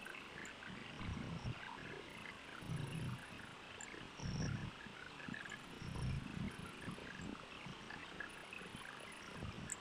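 Red colour pencil shading on paper, low scratchy rubs coming in uneven strokes about every second or two over a faint steady hiss.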